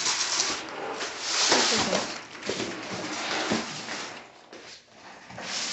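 Cardboard shipping box and packaging scraping and rustling as flat-pack TV stand panels are slid out of it by hand.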